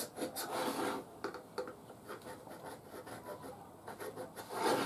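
Marking tool drawing lines across a wooden board against a square to find its centre: short scratching strokes and small taps, with longer strokes about half a second in and near the end.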